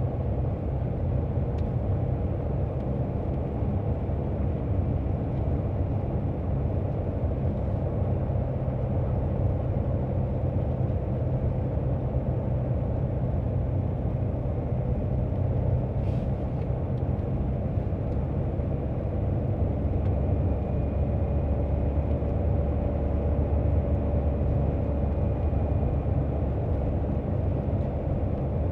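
Steady low rumble of a car being driven along a road, heard from inside the cabin: engine and tyre noise with no sharp changes.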